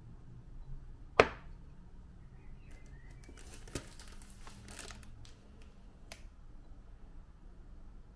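A ceramic mug set down sharply on a hard kitchen countertop about a second in, the loudest sound. Then a plastic crumpet packet crinkles as it is handled, with a few light clicks.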